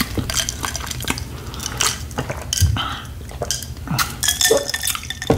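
Close-miked eating sounds: chewing with many small wet clicks, then sips of water from a stemmed glass, with light clinks of glass and tableware.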